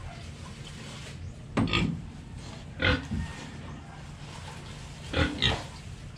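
Pigs grunting: short grunts in three bouts, a second or more apart.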